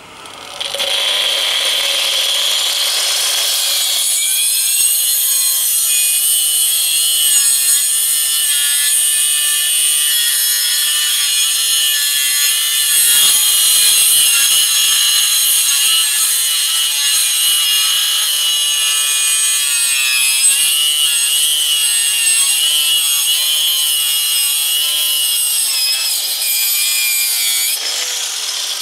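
Electric angle grinder with a toothed saw disc starting up and cutting into the skull of a beef head. A steady high whine whose pitch wavers as the disc bites into the bone, stopping near the end.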